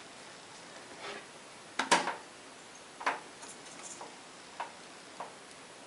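A handful of light clicks and knocks, the loudest about two seconds in, from a graphics card being lined up and pressed into a motherboard's PCI Express x16 slot.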